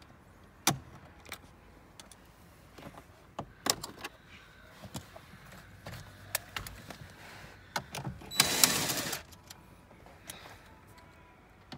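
Scattered clicks and taps of handling on the plastic dash, then, about two-thirds of the way in, a DeWalt cordless drill-driver runs for about a second, backing a screw out of the glove box surround.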